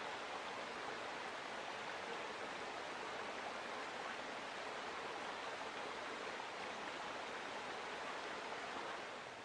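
Steady rushing of flowing water from a stream, an even wash of sound with no distinct events, dropping slightly in level just before the end.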